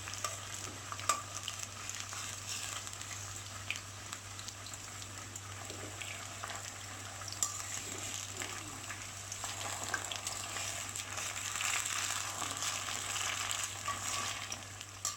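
Batter-coated cauliflower pieces deep-frying in hot oil: a steady sizzle with crackling pops and a few sharp clicks.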